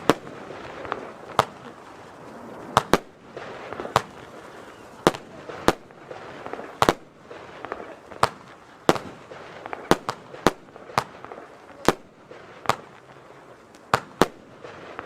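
Xplode Colorful Glittering Willow F2 firework battery (cake) firing: sharp bangs at uneven spacing, about one or two a second, over a continuous hiss.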